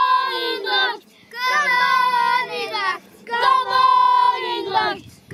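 Young children singing a drawn-out chant together, three long held phrases with short breaths between them.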